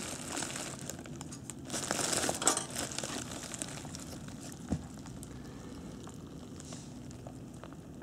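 Bubble wrap crinkling as a model locomotive is handled on it, loudest in the first three seconds and then fading to a faint rustle, with one short knock a little past the middle.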